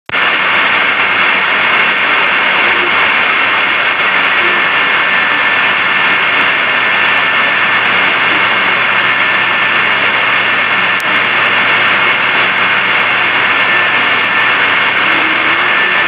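Steady, loud hiss from a recording that has been high- and low-pass filtered and boosted, so it has no deep bass and no high treble, with a few faint steady whistling tones running through it.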